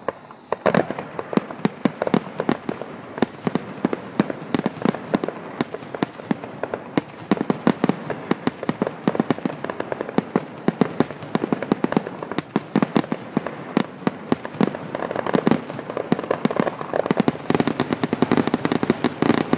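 Aerial fireworks display: a rapid, continuous series of shell bursts and reports, many per second, growing denser toward the end.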